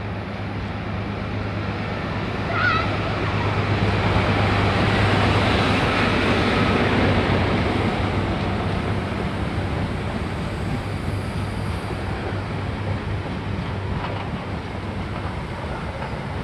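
Class 43 HST arriving: the diesel power car's steady low engine hum under the rumble of Mk3 coaches' wheels on the rails. The sound swells over the first few seconds, then eases as the coaches slow past. There is a brief high squeal about three seconds in.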